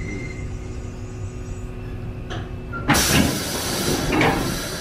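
Standing train car with a steady hum. About three seconds in, the pneumatic passenger doors of a Kotoden 1300 series (ex-Keikyu 1000) car open with a sudden loud hiss of air and the rumble of the sliding door panels. The hiss carries on to the end.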